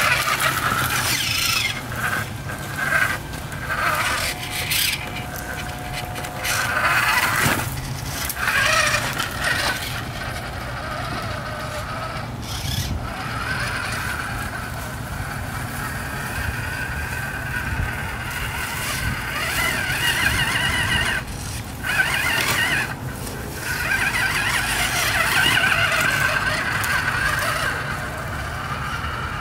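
Costco Max Power 1:5-scale toy-grade RC rock crawler driving, its electric drive motor and gears whirring in spurts that rise and fade with the throttle.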